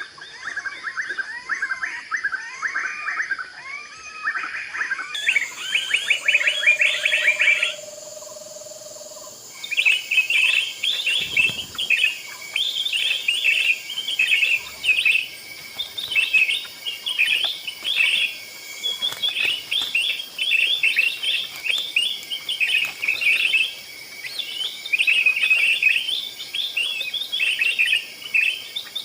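Small birds chirping in quick, repeated runs of high notes, with a lower warbling phrase at the start. The sound changes abruptly twice in the first ten seconds.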